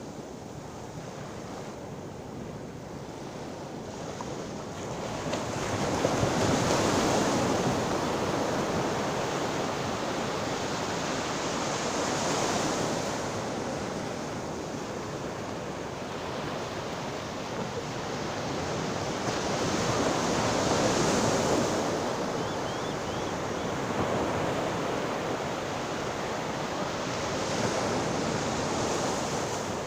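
Sea waves washing in, swelling louder every several seconds as each wave comes in and then easing off.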